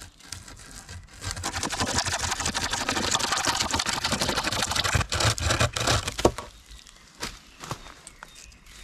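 Pocket chainsaw rasping through a fresh green sapling for about four seconds, then a few sharp cracks and snaps as the stem bends over and splits.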